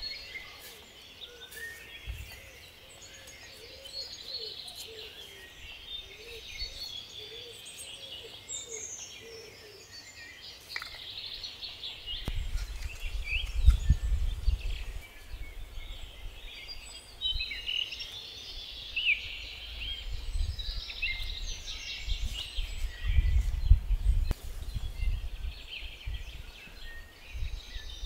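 Songbirds singing outdoors, many short chirps and trills overlapping throughout, with stretches of low rumble about halfway through and again near the end.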